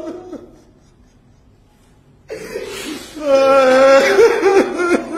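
A brief voice at the very start, a quiet stretch, then a little over two seconds in a loud voice starts abruptly, holding long, wavering pitched tones in the manner of wailing or a chanted lament.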